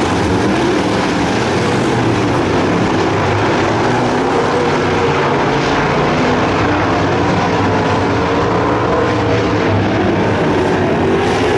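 A pack of dirt late model race cars' V8 engines running at speed together, several engines overlapping and rising and falling in pitch as the cars go round the oval.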